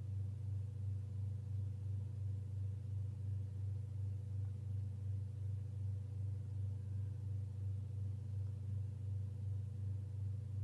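A low, steady hum pulsing evenly about three times a second.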